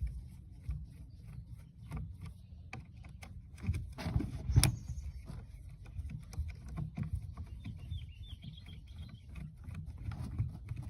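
Irregular clicks, taps and knocks of small parts of an old electronic device being handled and taken apart, with a louder knock about four and a half seconds in, over a steady low rumble.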